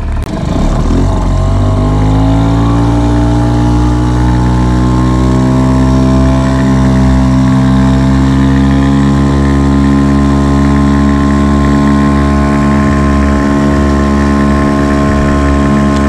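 Small outboard motor on the boat's stern speeding up over the first couple of seconds, then running steadily at cruising speed.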